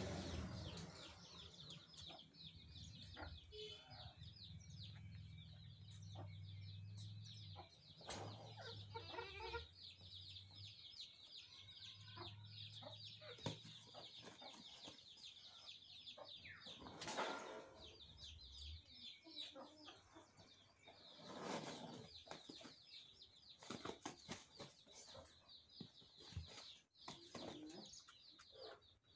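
Domestic turkeys in a yard: faint wing-flapping and scuffling as a strutting tom mounts a hen, with a few clucks, over a constant background of small birds chirping.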